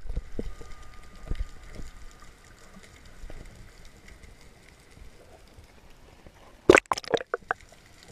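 Sea water sloshing and gurgling, with a quick run of five or six sharp knocks about seven seconds in.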